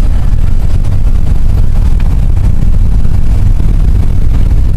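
Steady low rumble of a car driving along a road, road and engine noise heard from inside the car.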